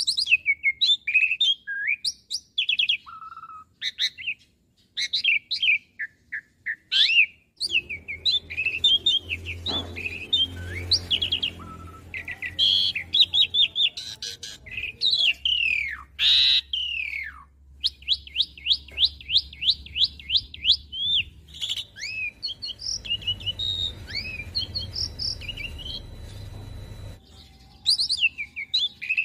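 Asian pied starling singing a long, varied song of quick chirps and whistles, some sliding down in pitch. About two-thirds of the way through comes a run of rapid, evenly repeated notes.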